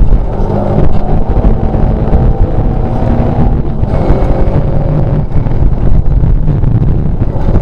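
Škoda 130 LR rally car's rear-mounted four-cylinder engine running hard, heard from inside the cabin together with tyre and gravel noise from the loose road surface. The engine note shifts about halfway through.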